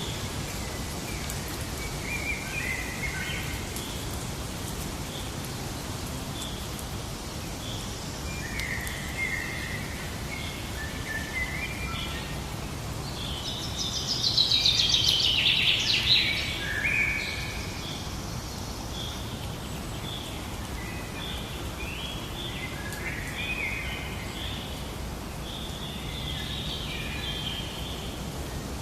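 Wild birds calling and singing in short, repeated notes over a steady background hiss, with one louder, rapid trill-like song about halfway through.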